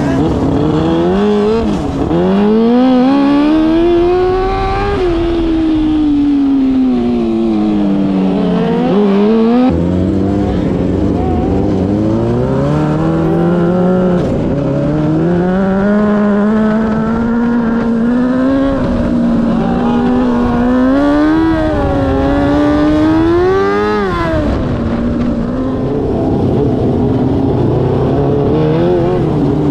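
Micro sprint cars' motorcycle engines racing around the track: the engine pitch climbs on each straight and drops as the drivers lift for the turns, over and over.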